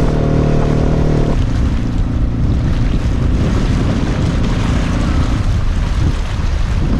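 An inflatable boat's motor running at a steady pitch under heavy wind buffeting on the microphone; about a second in the motor tone cuts off abruptly, leaving the rumble of wind on the microphone and choppy water against the hull.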